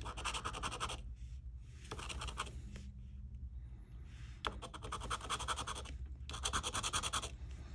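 Rapid scratching of a disc-shaped scratcher rubbing the coating off a scratch-off lottery ticket, in about four bursts of quick strokes with short pauses between them.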